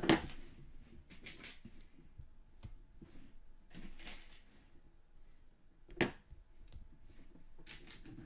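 Plastic Lego pieces being handled and pressed together: two sharp clicks, one at the start and one about six seconds in, with softer rustling of pieces in between.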